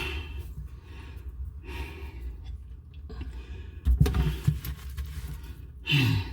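A person breathing out heavily every couple of seconds, with a low thump about four seconds in and a short falling groan near the end.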